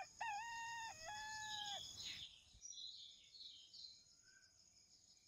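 A rooster crowing once, one drawn-out crow of several segments lasting about two seconds, followed by faint small-bird chirps over a steady high insect trill.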